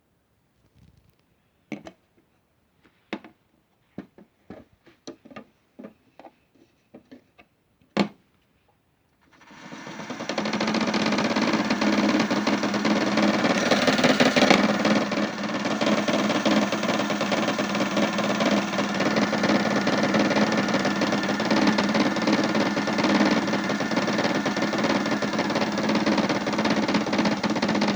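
Modified toy washing machine: scattered single knocks and clicks, then about nine seconds in the drum spins up fast and runs with a loud, continuous rapid rattle over a steady motor hum, the unbalanced spin shaking the machine.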